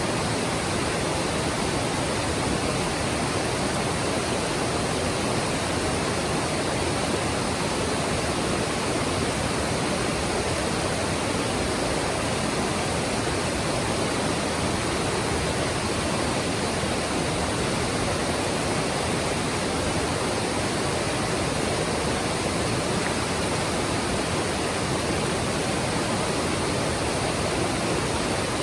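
Mountain stream flowing: a steady, even rush of water with no breaks.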